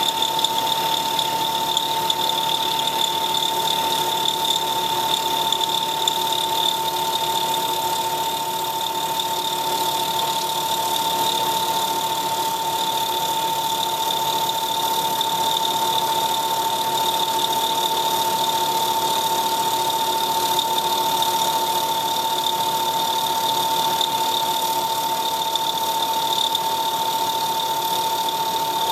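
CNC milling machine spindle running with a steady high whine as the cutter mills the thread of a four-start worm under flood coolant.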